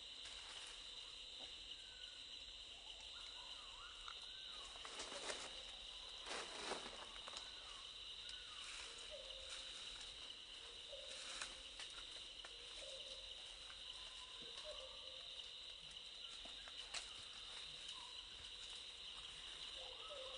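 A steady, high-pitched insect chorus buzzes without a break through the forest. Faint short calls are heard now and then beneath it, along with a few brief rustling noises; the loudest come about five and a half and seven seconds in.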